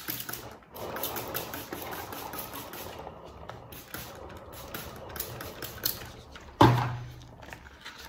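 Hand-pump spray bottle spritzing water onto the cake's cream, in a fast run of short hissing squirts with a brief pause partway. About six and a half seconds in comes one loud thump, something set down on the table.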